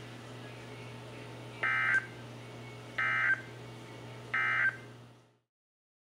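NOAA Weather Radio SAME end-of-message code: three short, buzzy digital data bursts about a second and a half apart, played through a weather radio's speaker over faint static and a low hum. They mark the end of the flash flood warning broadcast. The sound fades out about five seconds in.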